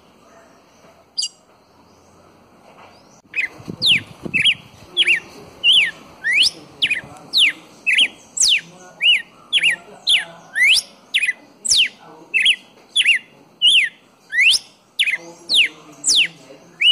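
Red-cowled cardinal singing: a single short note, then from a few seconds in a fast run of loud whistled notes, alternately rising and falling sweeps, about two a second.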